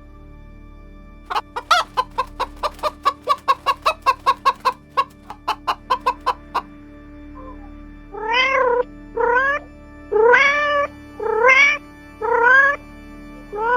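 An animal calling: a quick run of about twenty short chirping calls, then six short meow-like calls that each rise in pitch, with a faint steady music drone underneath.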